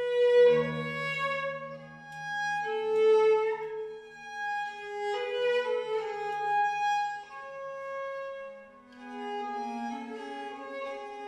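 Baroque violin and viola da gamba playing a duet in long held bowed notes, the violin's melody moving above a sustained low gamba line.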